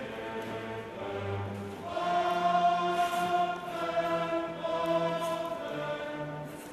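Background music of slow, long held chords that change about once a second.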